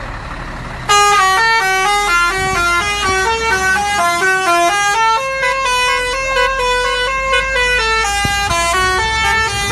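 Lorry air horn playing a tune of quick stepping notes, starting about a second in, over the low steady hum of the truck's running engine.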